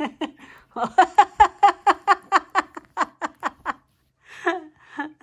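A woman laughing, a run of quick, even "ha" pulses for about three seconds, with a short voiced sound or two near the end.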